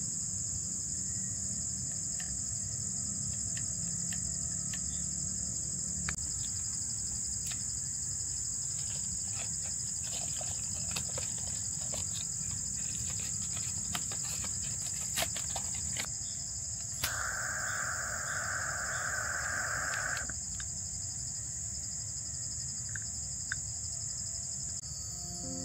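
A steady, high-pitched chorus of crickets and other insects, with scattered faint clicks. About two-thirds of the way through, a lower buzzing sound joins for about three seconds, then stops abruptly.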